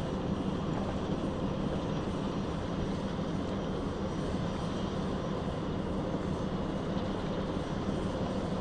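A steady, low engine drone with a constant hum and a wash of noise over it, unbroken and even in level.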